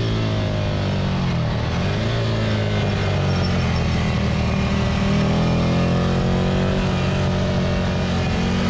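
Ducati Monster 659's air-cooled L-twin engine heard from on board while lapping a track: the engine note falls over the first two seconds as the bike slows, then climbs again and holds as it accelerates. Steady wind rush on the onboard microphone runs underneath.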